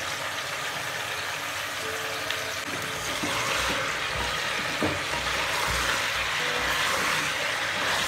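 Chopped vegetables sizzling as they are sautéed in a pressure cooker on a gas burner, stirred with a spatula, with a few short knocks of the spatula against the pot.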